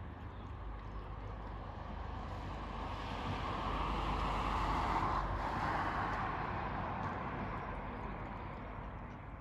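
A vehicle passing by out of sight: a steady rushing noise that swells from about two seconds in, is loudest around the middle, and fades away near the end.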